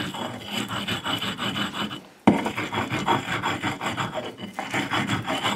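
Stone grinding on a flat grinding stone (sil): a stone roller scraped back and forth over wet green onion, rubbing stone on stone at about three strokes a second. The strokes stop briefly about two seconds in and start again sharply.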